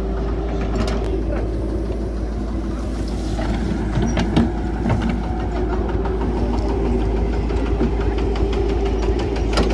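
Diesel engine of a CAT 312 hydraulic excavator running steadily under work, with scattered short knocks and clanks from the machine.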